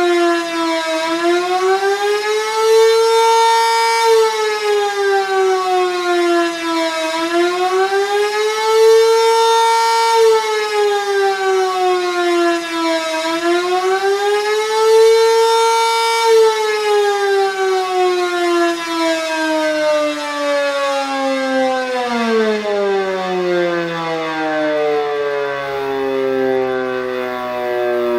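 Sentry 3V8 outdoor warning siren sounding an attack or fast-wail signal: its pitch rises and falls about every six seconds, three times over. From about halfway through, the siren winds down in one long falling tone.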